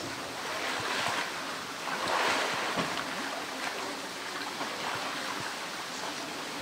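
Pool water splashing and sloshing as a polar bear wades and pushes a plastic tank about, with louder splashes about a second in and again between two and three seconds in.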